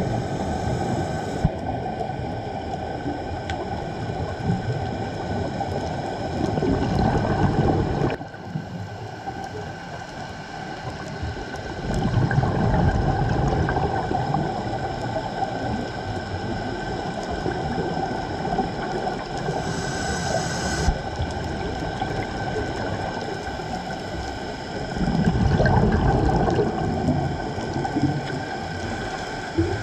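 Underwater sound of a scuba diver's regulator breathing, with the exhaled bubbles rising as louder rumbling swells three times. Under it runs a steady wash with faint steady tones.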